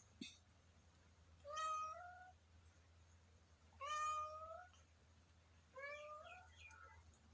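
Hungry kitten meowing three times, about two seconds apart, each meow high-pitched and rising slightly at the end. A short click sounds just before the first meow.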